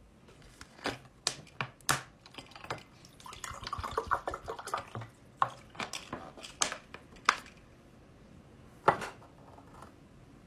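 Plastic water bottle crackling and clicking as it is handled, with water poured into a drinking glass. A few sharp single knocks follow as the glass is handled on the tabletop.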